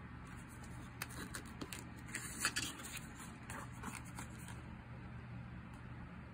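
A picture-book page being turned by hand: faint paper rustles and light taps, the loudest about two and a half seconds in, over a low steady hum.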